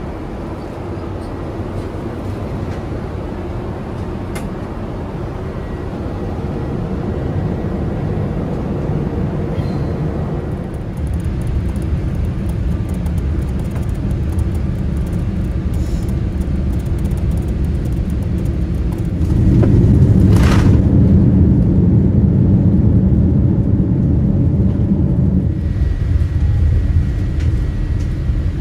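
Boeing 787-8 cabin rumble of engines and airflow on final approach, slowly growing louder. About two-thirds of the way in it jumps to a heavier rumble, with a single sharp knock a second later, as the airliner touches down and slows on the runway; the rumble eases a few seconds before the end.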